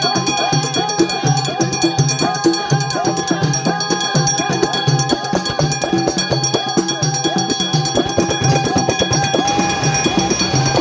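Music with a steady, even drum beat under a melody that slides up and down in pitch.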